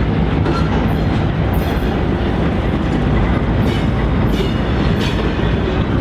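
Canadian Pacific GE AC4400CW diesel-electric locomotive, with its 16-cylinder GE engine, running steadily as it hauls a train through the yard, together with the wheels rolling over the rails. A few brief high squeaks come through the rumble.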